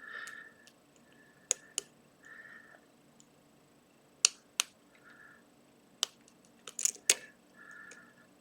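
Lock pick and tension wrench working the pins of a pin-tumbler challenge lock: a run of sharp metallic clicks, several in close pairs, with short scratchy scraping of the pick between them.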